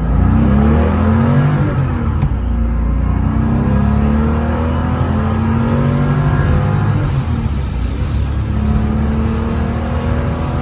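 1973 Porsche 911T's air-cooled flat-six under full throttle, heard from inside the cabin: the revs climb, drop back at each upshift, and climb again through the gears. The shifts go through without grinding and the clutch does not slip.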